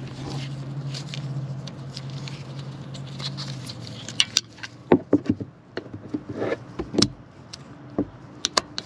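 Sharp clicks and taps of a screwdriver and the plastic brake pad wear sensor against the metal brake pad and caliper as the sensor is pushed into the pad, coming as a dozen or so irregular strikes from about four seconds in. Before that, a steady low hum runs and fades out at about three and a half seconds.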